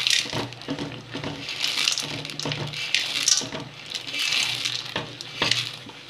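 Roasted gram (pottukadalai) being poured from a steel bowl into jaggery syrup in a kadai and stirred in with a spoon: several short bursts of scraping and clattering of the grains and spoon against the pan.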